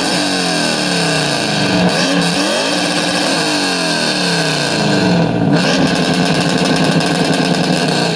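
A parked car's V8 engine revved hard several times, its pitch climbing and falling with each blip of the throttle.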